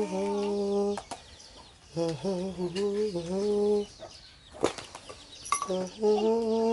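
A man humming a slow tune in long held notes, three phrases with short pauses between them, as a lullaby. A couple of sharp clicks come between the second and third phrases.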